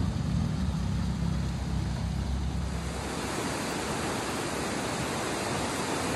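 A low rumble that fades over the first few seconds, then the steady rush of a fast-flowing river running over rocks.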